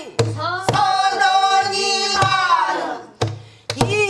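A woman singing pansori in long, bending held notes, with a few low thumps of a buk barrel drum keeping the beat underneath.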